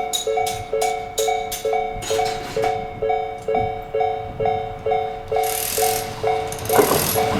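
Railway level-crossing alarm ringing: an electronic bell alternating between two tones, about three strikes a second. An approaching train's noise builds over the last two seconds and begins to drown out the bell.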